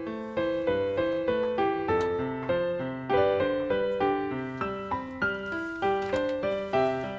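Background piano music: a gentle melody of single notes and broken chords played at an even pace.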